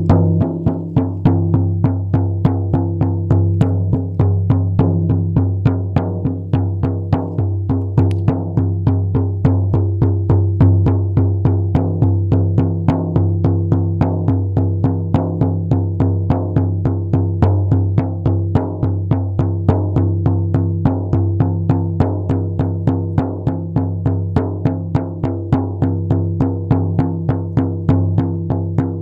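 Frame drum beaten in a steady, even rhythm of about three strikes a second, with a low ringing hum carrying on between the beats.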